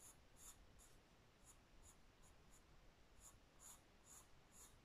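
Faint scratching of a pencil sketching light curved strokes on squared notebook paper, about two short strokes a second.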